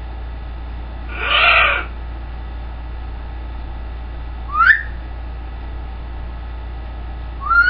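Greenwing macaw giving one hoarse call lasting about a second, then two short rising whistles about three seconds apart, the second at the very end.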